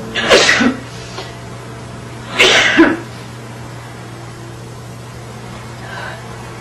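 A person sneezing twice, about two seconds apart, in a sneezing attack; each sneeze is short and loud.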